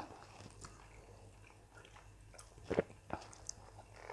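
Faint chewing and eating sounds from a person eating a meal, with a few short clicks and one sharper click about three quarters of the way through.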